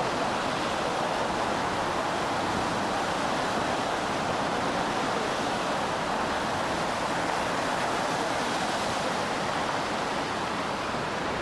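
Tsunami surge flooding a harbour: a steady rushing of turbulent seawater, with no let-up.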